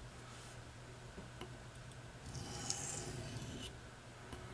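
Knife blade drawn along a wet coarse oilstone: one long gritty scraping stroke starting a little past halfway, with a couple of faint clicks before it. The edge is being worked on the 400-grit side to find the bevel and raise a burr.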